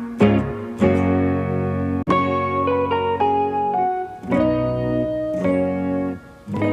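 Background instrumental music: a plucked-string melody over sustained chords.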